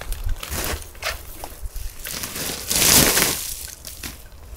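Crunching and rustling of footsteps moving through brush and loose gravel, with a louder, longer rustle about three seconds in.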